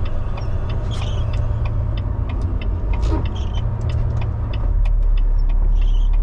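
Semi truck's diesel engine running, heard from inside the cab: a steady low rumble that evens out and grows a little louder about two-thirds of the way in. Light sharp ticks patter over it throughout.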